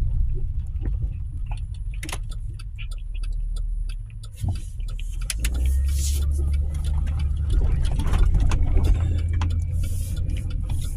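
A car driving, heard from inside the cabin: a steady low engine and road rumble that grows louder from about halfway through, with scattered small clicks.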